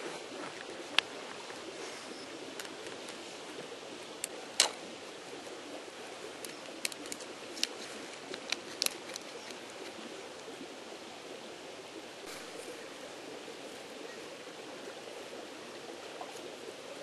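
Scattered sharp clicks and ticks of a stone flake scraping and catching in a drilled hole in bone, about eight of them in the first half, the loudest about four and a half seconds in. Under them runs the steady rushing of a creek.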